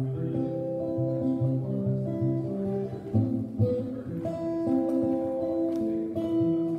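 Archtop guitar played solo: picked chords and single notes, several notes ringing together and changing about every half second.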